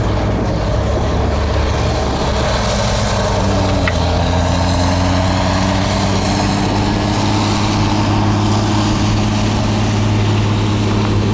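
A heavy machinery engine runs steadily on a construction site, and its pitch steps up slightly about four seconds in.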